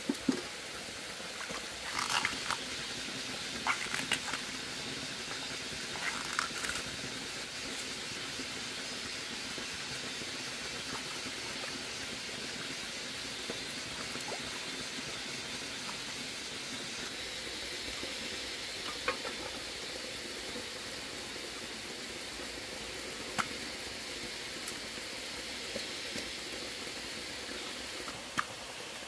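Steady hiss of running stream water, with scattered sharp clicks and knocks: a cluster in the first seven seconds and a few single ones later.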